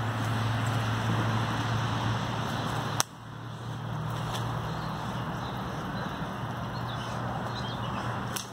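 Steady low hum and hiss of background noise, broken by a sharp click about three seconds in, with a few faint high chirps near the end.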